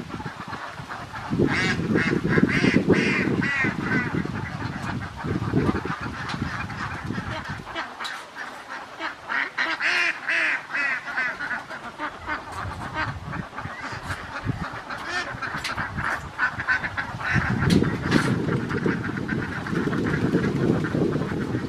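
A large flock of domestic ducks quacking, many calls overlapping in a continuous chorus, over a low rumbling noise that drops away for a few seconds midway.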